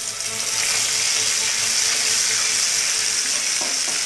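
Pieces of marinated fish sizzling steadily and loudly in hot mustard oil in a kadhai as they are shallow-fried golden brown and turned over.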